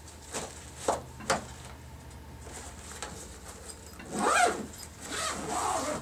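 A few light knocks from handling the bag, then the zipper on a soft-sided RaceCase RC car bag's end door being pulled closed in two strokes, the louder one about four seconds in.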